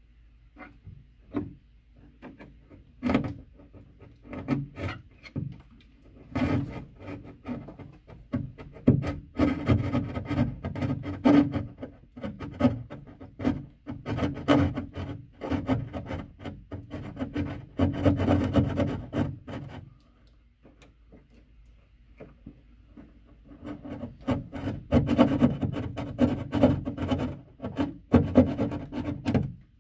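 Sheetrock being cut by hand with a saw, in quick rasping back-and-forth strokes, pausing briefly about two-thirds of the way through.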